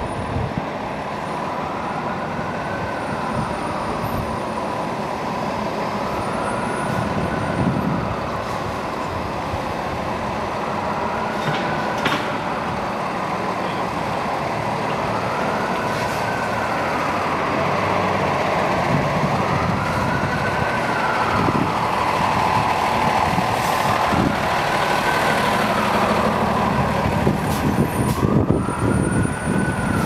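Steady, loud machine noise with a faint tone that rises and falls about every four and a half seconds, getting a little louder in the second half.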